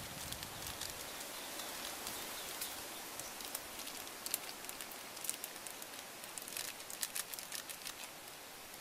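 Light clicks and crinkles of a small seasoning packet and a metal spoon being handled, as ground pepper is shaken onto the spoon, over a steady hiss. The clicks come scattered and are thickest in the second half.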